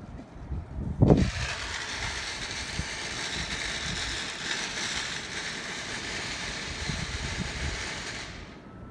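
A firework going off: a loud thump about a second in, then about seven seconds of steady, dense hissing crackle that stops sharply near the end.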